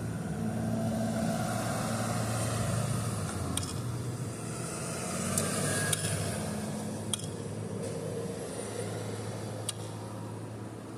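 Road traffic: car and truck engines running and tyres on pavement as vehicles pass through an intersection, with a few short sharp clicks.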